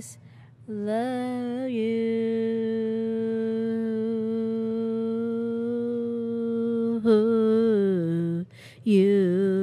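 A woman humming unaccompanied, without words: a short wavering note, then one long held note of about five seconds. A brief higher note near the end slides down, and after a short break she holds another note.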